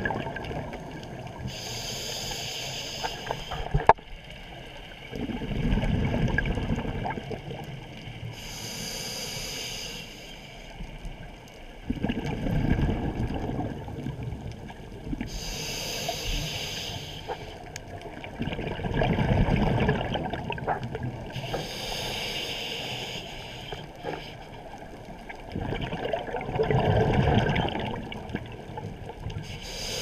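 Scuba diver breathing underwater through a regulator: a hiss on each inhalation, then the low gurgle of exhaled bubbles. There are about four slow breaths, one every six to seven seconds.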